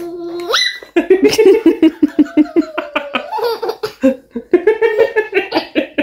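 A toddler and a man laughing together in rapid, repeated bursts of about five a second. It begins with a held voice that slides sharply up into a squeal about half a second in.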